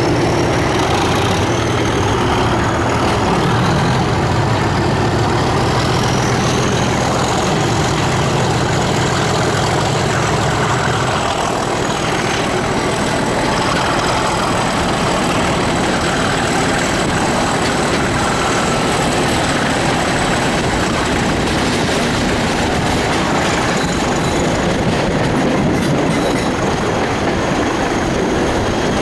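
Two Class 37 diesel-electric locomotives, each with an English Electric 12CSVT V12 engine, working hard as they pull a train away, the thrash of their engines heard from the carriages behind. A high steady whistle sits above the engine drone. The heavy engine note is strongest for the first ten seconds or so, after which wheel-on-rail running noise of the moving train comes more to the fore.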